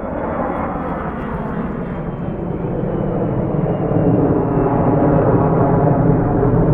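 Passenger airliner flying low overhead on the McCarran Airport flight path: a loud rushing engine noise that grows louder, with a faint high whine slowly falling in pitch.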